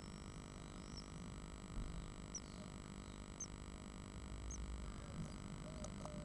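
Steady electrical hum from a nest-box camera, with faint short high peeps about once a second. A few scratchy clicks come near the end as an adult great tit lands in the box.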